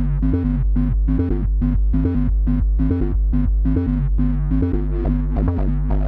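Electronic outro music with sustained synth notes over a steady bass and a regular beat.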